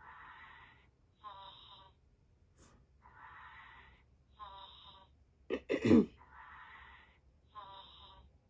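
Thready Bear interactive plush toy playing its sleeping sounds through its speaker: a snoring in-breath and a hissing breath out, repeating about every three seconds. About five and a half seconds in comes one louder, short vocal sound that falls in pitch.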